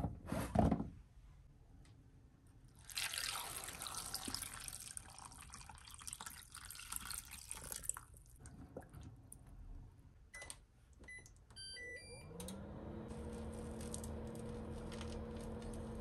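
Chunks of purple sweet potato knocking as they drop off a plastic cutting board into a plastic colander, then tap water running over them for several seconds. About ten seconds in, an induction cooktop's control panel beeps several times, and the hob starts with a short rising tone that settles into a steady electrical hum.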